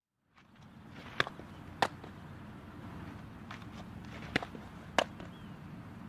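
Steady low background noise with four sharp smacks in two pairs, each about half a second apart. The last and loudest, about five seconds in, is a pitched softball popping into the catcher's mitt.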